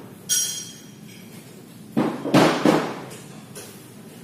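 A bent stainless steel pipe clinks once with a short metallic ring just after the start. About two seconds in comes a louder cluster of knocks, the loudest sound.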